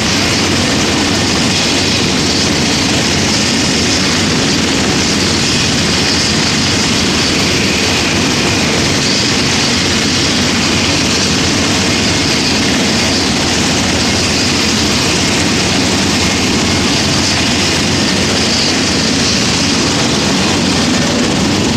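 Distant military helicopters (UH-60 Black Hawk, Mi-17, AW149) running on the ground with engines started: a steady, loud turbine whine and rotor noise that holds level throughout.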